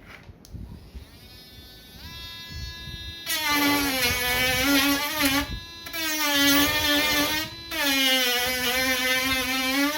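Dremel rotary tool with a sandpaper tip sanding down a laptop palmrest. Its whine comes in faintly about two seconds in and turns loud about three seconds in. The pitch sags each time the tip bears into the part, in three passes with short breaks between.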